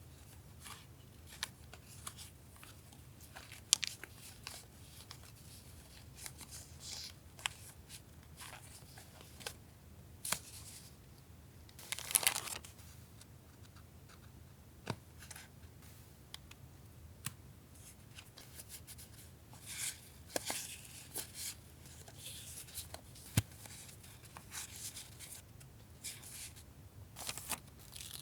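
Hands handling paper stationery and its packaging: crinkling and rustling with scattered light taps and clicks, and a short tearing or crinkling burst about twelve seconds in. A faint steady low hum from a refrigerator runs underneath.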